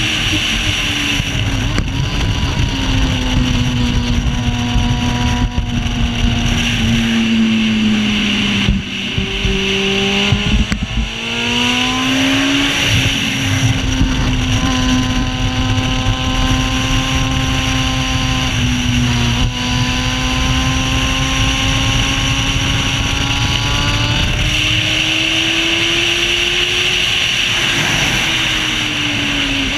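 Racing sidecar outfit's engine running hard on track, heard from on board with wind rushing past. The engine note falls as it slows about eight seconds in, then climbs sharply as it accelerates out. It holds steady, rises again and drops near the end.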